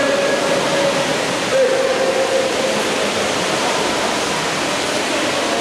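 Steady, reverberant din of a water polo game in an indoor pool hall: water churned by the players, with voices calling out faintly through it.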